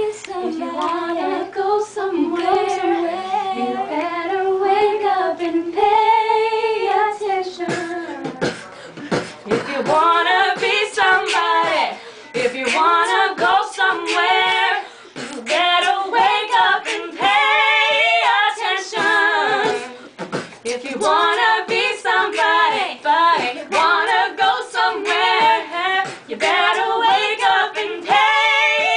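Three young women singing a cappella together, a repeated, bouncing melody, with sharp percussive beats joining the singing about eight seconds in.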